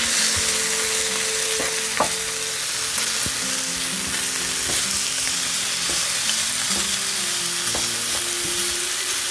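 Thin strips of spruce grouse breast sizzling in oil on a hot electric griddle, with a spatula scraping and knocking on the griddle surface a few times as the meat is flipped and stirred.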